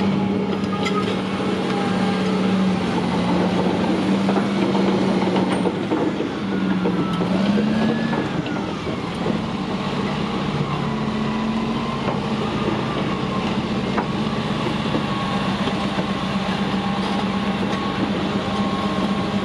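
CAT D6T dozer's C9 diesel engine running steadily. Its speed dips and picks up again about seven seconds in.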